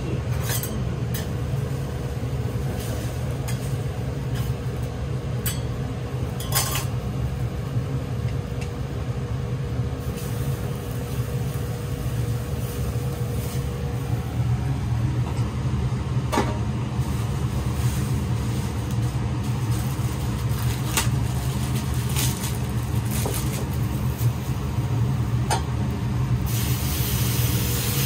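Steady low rumble of kitchen equipment around a steel teppan griddle, with scattered sharp clicks of metal utensils on the plate. Near the end a hissing sizzle starts as noodles fry on the griddle with a squeeze of oil.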